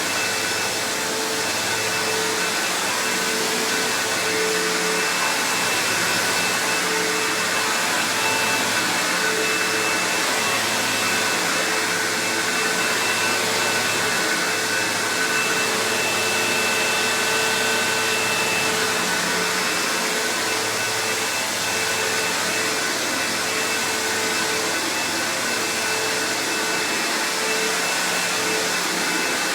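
Hoover Insight bagged upright vacuum cleaner running steadily, its motor giving a constant whine over the rush of airflow, while it is pushed back and forth.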